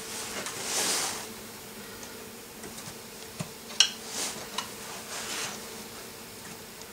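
Hands handling a Victor wooden snap rat trap: a rustle, then sharp metallic clicks, one ringing, as the spring-loaded bail and catch are moved about four seconds in. A faint steady buzzing hum runs underneath.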